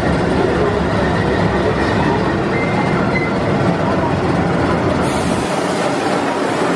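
Indian Railways diesel locomotive moving slowly past at close range: its engine runs with a steady rumble over the sound of wheels rolling on rail. About five seconds in, the sound turns hissier and loses some of its deep low end.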